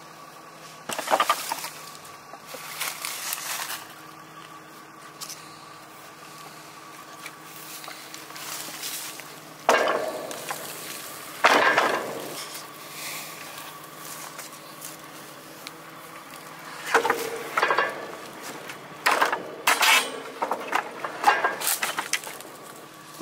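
Hard objects clinking and clattering in several short bursts over a steady low hum.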